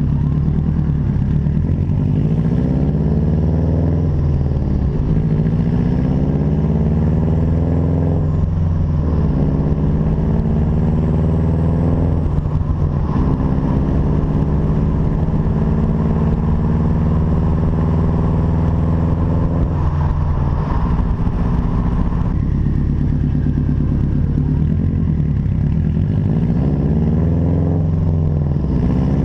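Subaru STi's turbocharged EJ257 flat-four under hard acceleration, heard through a catless downpipe and 3-inch exhaust with a race muffler. The pitch climbs steadily over several seconds and falls away sharply, several times over, with one long climb in the middle.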